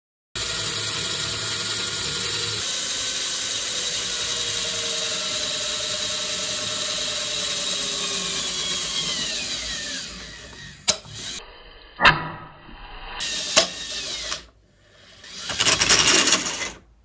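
Small DC motor driving a 3D-printed PLA herringbone gearbox, a steady whirring whine. About eight seconds in, its pitch falls as the motor slows, then the sound drops away. Three sharp clicks follow, and a second short burst of running comes near the end.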